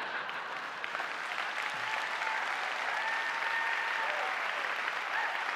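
A large audience applauding steadily, a dense patter of many hands clapping. A faint held call rises over it near the middle.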